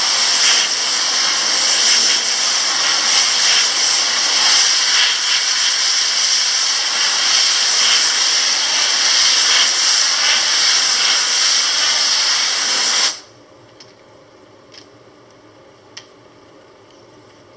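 Compressed-air blow gun hissing steadily as it blasts water out through a washable electrostatic furnace filter, swept side to side. It cuts off suddenly about 13 seconds in, leaving a few faint clicks.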